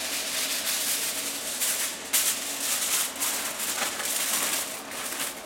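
Sheet of aluminium foil crinkling and rustling in a steady stream of small crackles as it is shaken out and folded tightly around a cut of pork.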